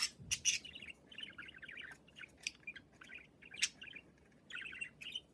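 Budgerigars chattering in quick warbling phrases, with a few short, sharp chirps cutting through.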